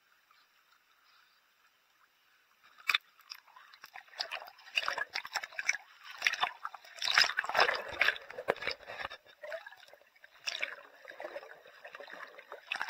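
Sea water sloshing and gurgling against a camera held at the surface and dipped under, with bubbles rushing past. Near silent at first, a sharp click about three seconds in, then an irregular run of splashes and crackles, loudest past the middle.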